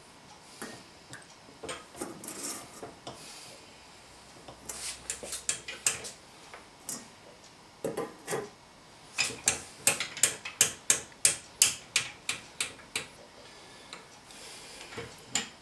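Sausage being hand-stuffed into casings: a run of sharp clicks and rubbing noises, a quick cluster about five seconds in, then a steady series of about two or three clicks a second for several seconds.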